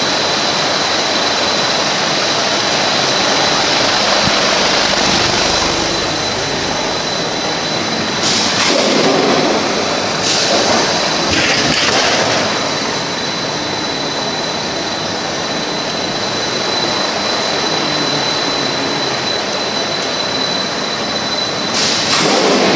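KINGJIME KJH40-3x1600 cut-to-length line for stainless steel sheet running: a steady, loud mechanical noise with a constant high whine through it. A few short louder surges of noise come about eight and eleven seconds in and again near the end.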